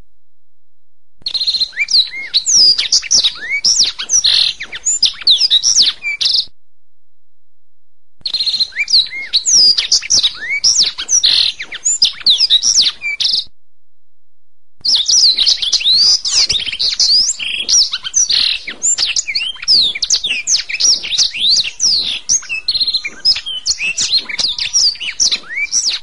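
Domestic canary singing a fast song of quick trills and high chirps, in three long phrases with short silences between them; the first starts about a second in, and the last is the longest.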